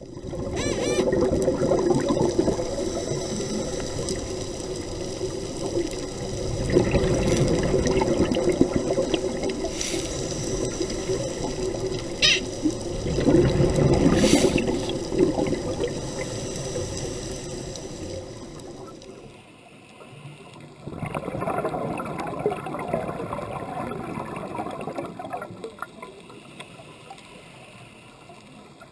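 Underwater bubbling and rushing water, in louder surges every few seconds, typical of a scuba diver's regulator exhaling bubbles near the camera. The sound drops and changes character about two-thirds of the way through.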